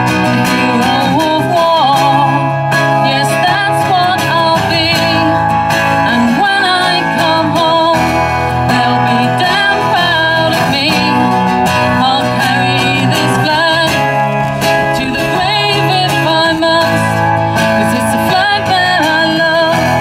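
Live acoustic music: two acoustic guitars strummed in a slow song, with a singing voice carrying a wavering melody over the chords.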